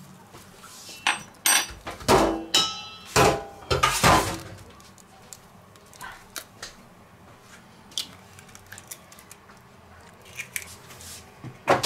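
A metal spoon knocking and scraping against a stainless-steel mixing bowl, a quick cluster of sharp clinks with a ringing tail, followed by a few softer taps as an egg is cracked into the bowl.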